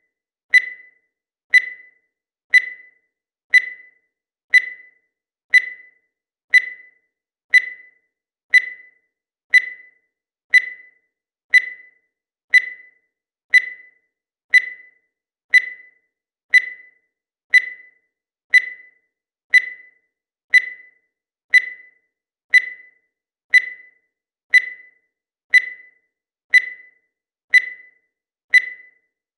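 A digital timer's electronic beep sounding once every second, marking each passing second of the countdown. Each beep is a short, high-pitched tone that dies away quickly, repeating at a perfectly steady pace.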